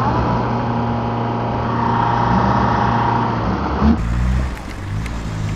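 Engine of a Toyota 4x4 off-roader bogged in deep mud, running at a steady note. About four seconds in, the sound cuts abruptly to a lower, steadier engine note.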